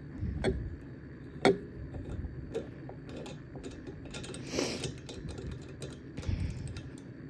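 Scattered small clicks and knocks of parts of a pneumatic filling machine being handled and pulled off, the sharpest about one and a half seconds in, with a short rush of noise about two thirds of the way through.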